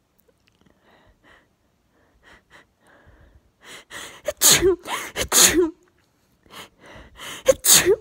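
A woman's sneezing fit: quick faint breaths at first, then several loud sneezes in quick succession from about four seconds in, and another just before the end.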